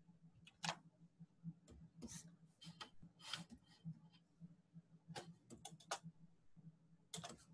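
Near silence broken by scattered faint clicks of a computer mouse, with a quick run of them around five to six seconds in, over a low steady hum.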